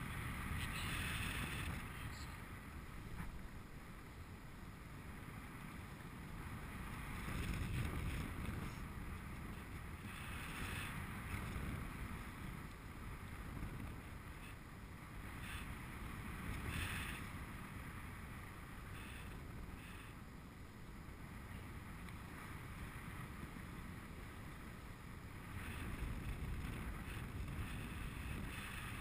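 Wind rushing over the camera microphone of a paraglider in flight, a low rumble that swells and fades in gusts.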